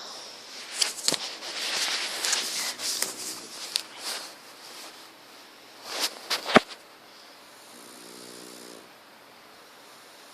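Pug snoring: a long, noisy breath about a second in, then a buzzing, pitched snore near the end. A few sharp clicks come a little past halfway.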